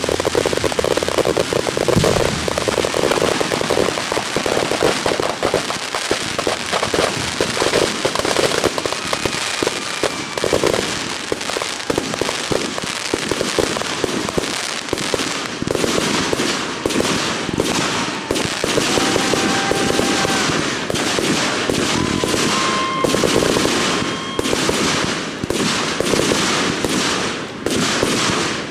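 Aerial fireworks in a closing barrage: a dense run of crackling bursts and bangs that thins out about halfway through into separate sharp reports, with a few brief whistling tones among them.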